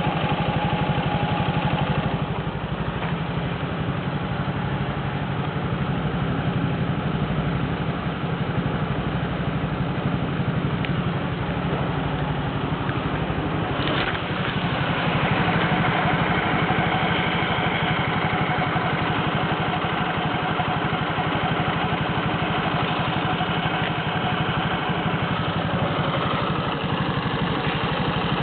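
Suzuki GSR125 scooter engine idling steadily, with one short sharp click about halfway through; the owner suspects it is making an abnormal noise.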